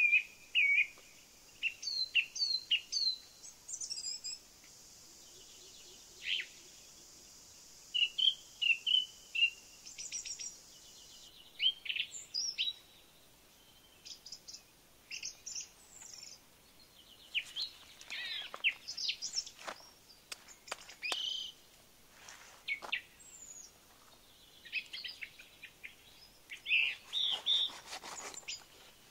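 Small birds chirping and calling in short, repeated phrases. In the second half, scraping strokes of a knife scaling a fish are mixed in with the birdsong, most of all near the end.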